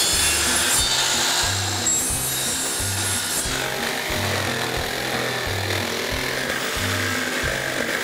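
Jigsaw cutting through an engineered hardwood flooring plank, a continuous rasping buzz. Background music with a pulsing bass beat plays under it.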